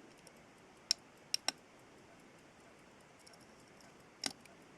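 Small sharp metallic clicks of watchmaker's tools against the parts of an old pocket-watch movement as a stuck piece is worked loose: three in quick succession about a second in, and one more near the end.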